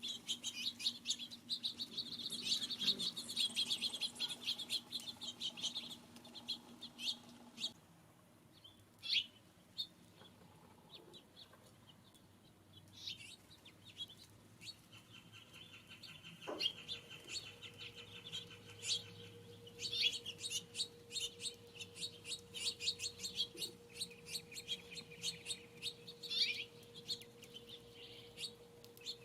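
Small songbirds at a feeder chirping and calling in rapid, overlapping bursts. The chirping is busiest at the start and again in the last third, with a sparser lull around the middle.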